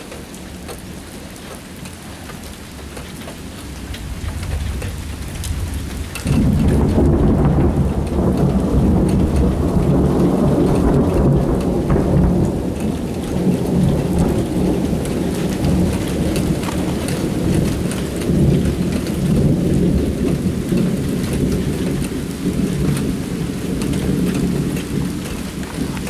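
Thunder rolling in a long, loud rumble. It builds for a few seconds, jumps to full strength about six seconds in, then rolls on, easing slowly. Heavy rain falls throughout.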